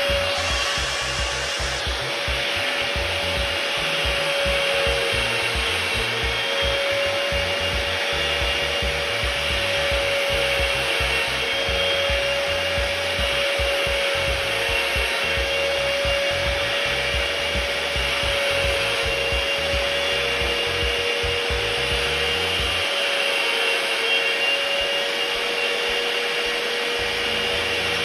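A small handheld electric power tool runs at a steady, slightly wavering speed, with a continuous grinding rub as a cutter bit for grooving ACP sheet is sharpened.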